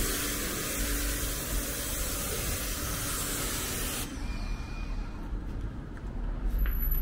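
A steady spraying hiss, strongest in the high range, that cuts off abruptly about four seconds in and leaves a much quieter low background. It matches car-washing equipment running.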